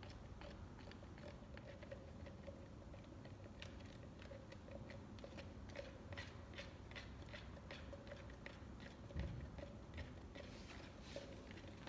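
Thin clear plastic mixing cup crackling and clicking irregularly as it is squeezed and twisted in gloved hands to crack loose the hardened epoxy left inside. A single soft low thump about nine seconds in.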